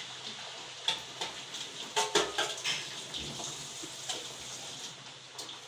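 Finger-cut potatoes sizzling in hot frying oil, with several clinks and knocks of kitchen utensils or dishes. The loudest cluster comes about two seconds in.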